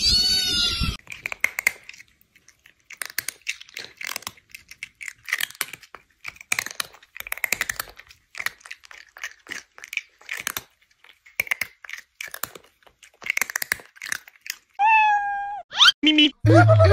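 A cat's meow ends about a second in. Then come many seconds of irregular clicking and crackling, and near the end a short cry that falls in pitch.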